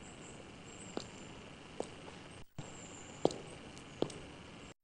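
Quiet camcorder recording: steady tape hiss broken by four short, scattered knocks. The sound drops out briefly in the middle and cuts out completely near the end.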